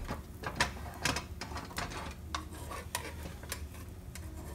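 Irregular clicks and knocks of a utensil and a nonstick frying pan being handled on the stove as a thin pancake cooks: the pan shifting on the burner and the utensil tapping and scraping in the pan, over a steady low hum.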